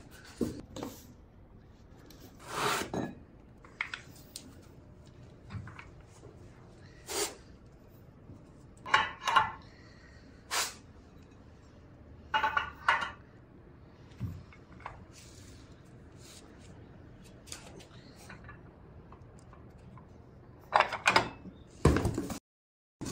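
The handle and weight plates of a Snode AD80 adjustable dumbbell being lifted out of the box and set down: scattered clinks and knocks of metal and hard plastic, a few of them ringing briefly, with a cluster of louder knocks near the end.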